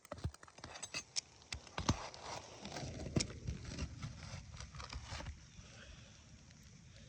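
Irregular taps, clicks and scrapes of hand work on an asphalt shingle roof. A rushing noise swells and fades over a few seconds in the middle.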